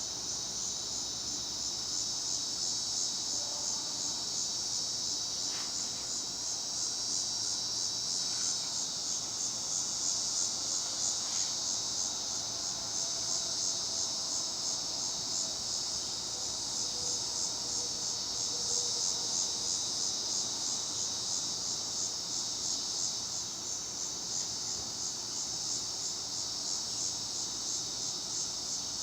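A steady, high-pitched buzz with a fast, even pulsing to it that runs on without a break.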